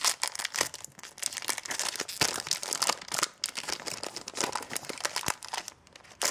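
Foil trading-card booster pack wrapper crinkling and being torn at as it is worked open by hand, a dense run of irregular crackles and sharp little snaps; the pack is stubborn and not tearing open easily.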